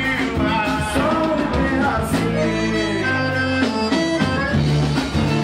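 Live band music: a singer over accordion, guitars, bass and drums.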